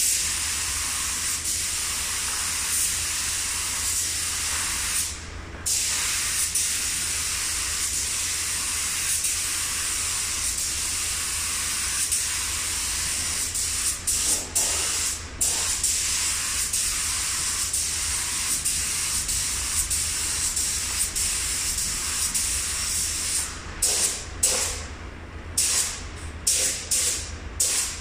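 Compressed-air paint spray gun hissing steadily as primer is sprayed, stopping briefly about five seconds in, then cut on and off in several short bursts near the end as the trigger is released and pulled again.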